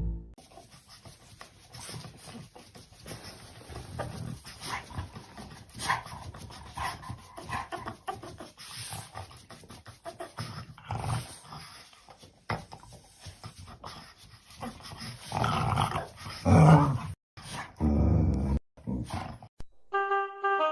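A dog vocalizing in irregular sounds, louder near the end.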